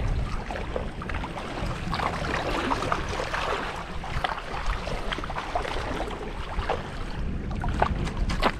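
Wind buffeting the microphone with a steady low rumble, while choppy lake water laps and splashes close by in many small, irregular slaps.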